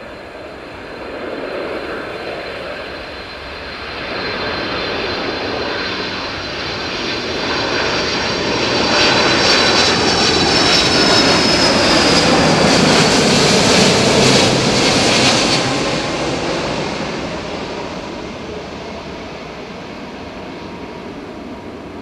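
Boeing 747-400's four General Electric CF6-80C2 turbofan engines on final approach, the airliner passing low overhead with landing gear down. The jet noise swells to its loudest a little before halfway and holds for several seconds, with a high whine that slides down in pitch, then fades as the plane moves away toward the runway.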